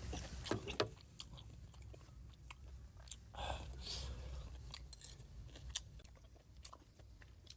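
Close-miked mouth sounds of a person eating boiled chicken: chewing and biting with scattered wet clicks and a few sharper snaps under a second in.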